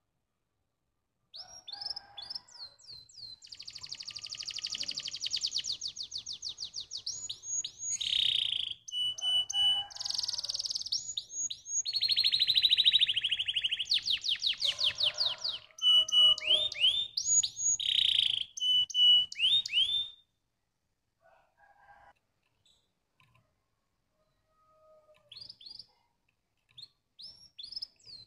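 Domestic canary singing a long, loud song of fast trills, rapid repeated notes and sweeping whistles. It starts about a second in, breaks off after about twenty seconds, and a few short notes come back near the end.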